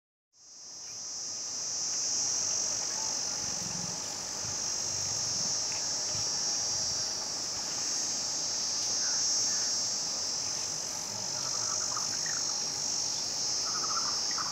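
Steady high-pitched drone of insects that fades in just after the start and holds without a break, with a few faint chirps from birds around it.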